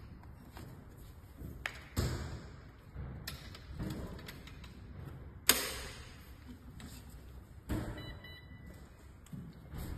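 Clicks and knocks of a foldable electric wheelchair's metal frame being handled and set up, with six or so separate sharp knocks, the loudest about halfway through.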